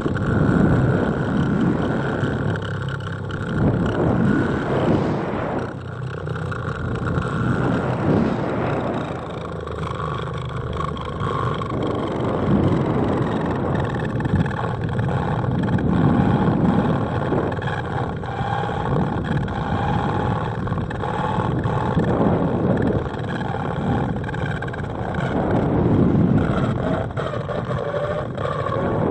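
Wind rushing over the microphone of a 360 camera on an ascending high-altitude balloon payload, a low rumbling roar that swells and ebbs every couple of seconds, with faint wavering tones above it.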